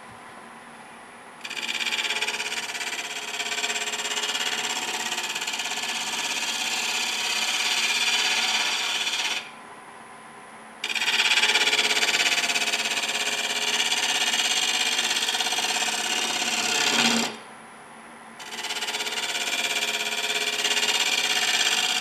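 A gouge cutting into a wood blank spinning on a lathe, a steady scraping hiss as shavings peel off. It comes in three long passes, broken by short pauses about 9 and 17 seconds in, where only the lathe running is left.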